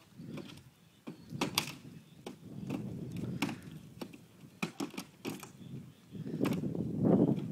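A horse walking: irregular knocks and scuffs of hooves over a low rustling noise that grows louder near the end.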